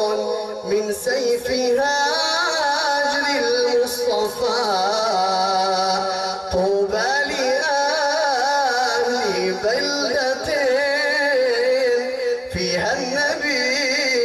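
A man singing an Arabic naat into a microphone, with long drawn-out notes that waver and slide in pitch.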